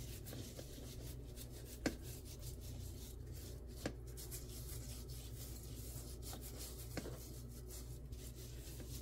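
A nitrile-gloved hand rubbing salt, pepper and lemon juice into raw beef steak on a plate: soft, faint rubbing of glove on wet meat over a steady low hum, with a few light clicks.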